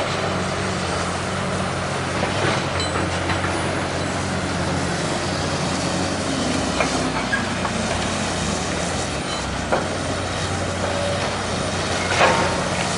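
Diesel engine of a demolition excavator running steadily, with a few sharp knocks spread through, the loudest near the end.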